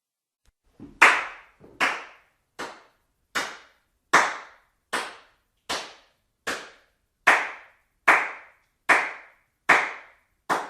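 Thirteen sharp, clap-like strikes at a steady pace of a little over one a second. Each hit is sudden and fades quickly.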